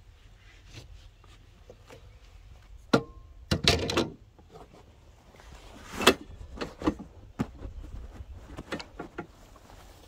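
Gear-handling noises on an ATV's metal rear rack: a sharp click about three seconds in, then the rustle and thump of a canvas duffel bag being set down and shifted on the rack, and a further loud rustle about six seconds in, with smaller strap and buckle clicks scattered through.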